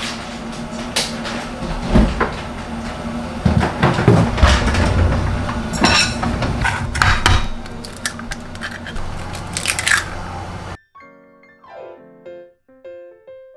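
Kitchen handling sounds: dishes and bowls knocked and clinked as they are taken out, with heavier thuds in the middle, over a low steady hum. About three seconds from the end these cut off suddenly, leaving only soft background music.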